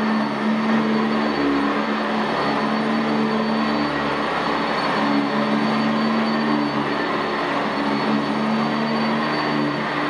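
Sanitaire SC679J commercial upright vacuum cleaner running steadily as it is pushed back and forth over dry carpet, its motor and brush roll giving a loud, even whir. Under the whir a low hum shifts slightly in pitch from stroke to stroke.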